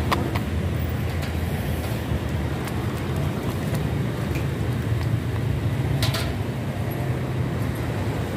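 A steady low rumble, with a few light metallic clinks as a ladle and strainer knock against a steel stockpot, once at the start and again about six seconds in.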